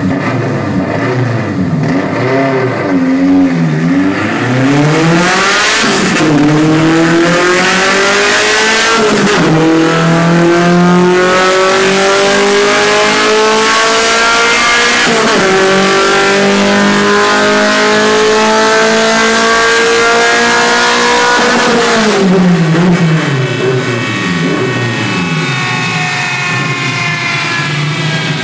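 Volkswagen Golf Mk3 race car's engine revving hard. A few short blips come first, then the revs climb with three sudden drops like upshifts, hold high for several seconds, and fall back to a steady idle near the end.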